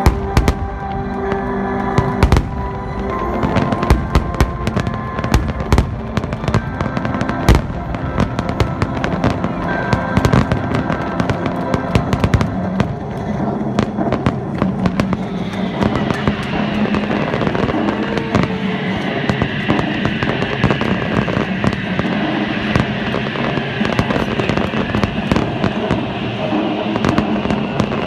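Aerial fireworks bursting in rapid succession: many sharp bangs throughout, thickening into dense crackling from about halfway through.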